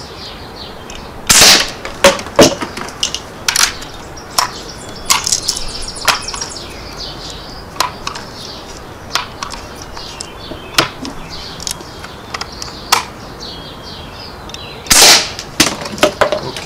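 Two shots from a .177 Umarex NXG multi-pump air rifle firing BBs at plastic bottles, about a second in and near the end, each a sharp crack. Lighter clicks and knocks come between them as the rifle is pumped and loaded for the next shot.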